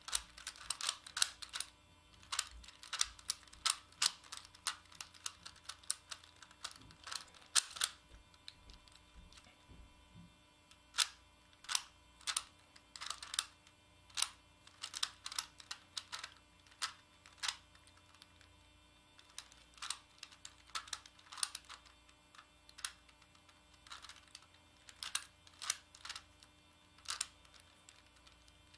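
Megaminx puzzle being turned by hand: quick runs of plastic clicks as the faces rotate, broken by a few pauses of a second or two.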